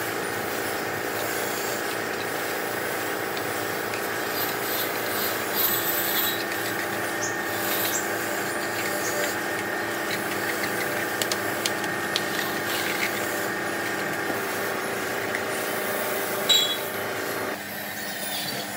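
A workshop power tool running steadily with a whine, with the rasping and scraping of a tool working metal and scattered small clicks. There is a sharp knock near the end, and the sound drops off just after it.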